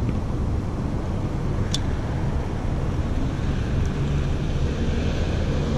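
Steady low rumble of road traffic with car engines running, and one brief faint click just under two seconds in.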